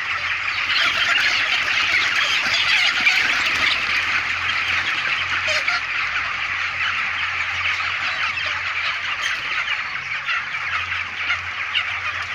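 A large flock of 28-day-old broiler chickens calling all at once in a dense, continuous din of squawks and peeps while they are being caught for harvest, with a low steady hum underneath.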